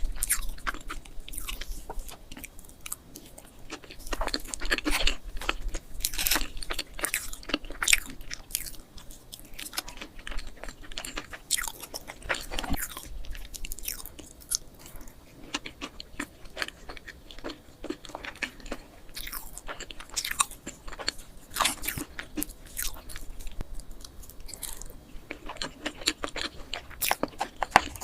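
A person eating molten chocolate cake close to the microphone: steady chewing and biting with many small, irregular clicks and crunches.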